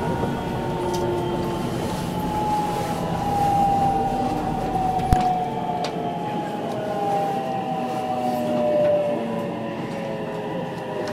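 Electric train pulling away from a station and gathering speed: a rumbling ride with whining motor tones that slide slowly down in pitch. A single sharp click about five seconds in.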